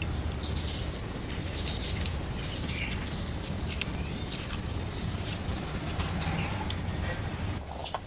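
Small birds chirping in the background over a steady low hum, with a few sharp clicks and crackles in the middle as papery garlic skins are peeled.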